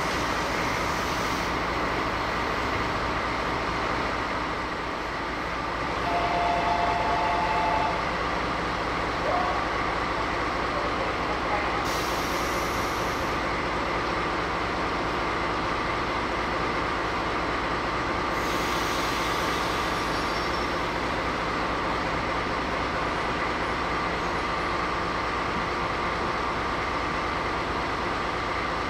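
DD16 diesel-hydraulic locomotive standing and idling with a steady engine hum. About six seconds in, a two-note tone sounds for roughly two seconds. Hiss comes in briefly around twelve seconds and again for a couple of seconds around eighteen to twenty seconds.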